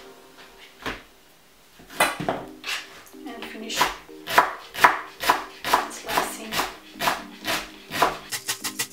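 A chef's knife chopping a leek on a plastic cutting board: one knock, then a steady run of chops about three a second that quicken near the end.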